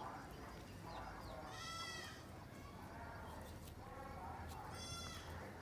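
Goats bleating: a few short calls, the two clearest about a second and a half in and near the end.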